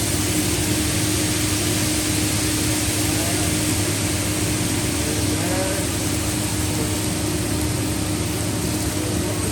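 Steady hiss and hum at a hibachi teppanyaki grill: food sizzling on the hot flat-top griddle under the running exhaust hood, with a steady low hum throughout and faint chatter.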